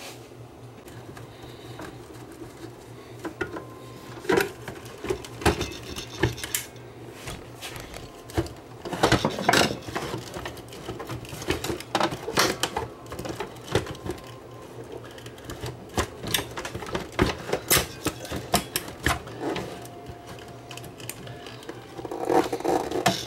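Irregular clicks, knocks and rattles of the plastic cabinet and chassis parts of a Candle JCTV0500 5-inch colour TV being handled and pried apart by hand as its power-supply transformer board is loosened. The clatter comes in a flurry about nine seconds in and again near the end.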